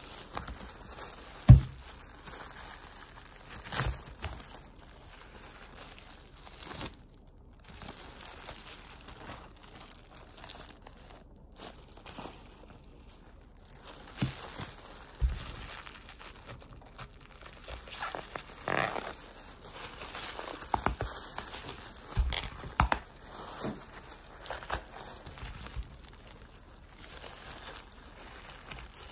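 Bracts being peeled off a banana flower by hands in plastic gloves over newspaper: rustling and crinkling of the gloves, paper and bracts, with scattered taps and knocks. A sharp thump about a second and a half in is the loudest sound.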